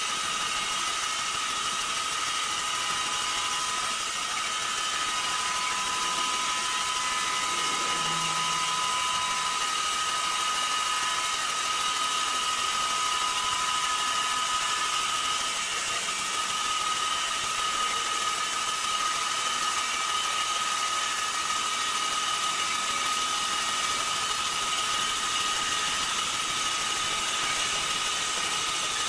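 Horizontal band sawmill running steadily through a large timber block: a constant high whine over a hiss.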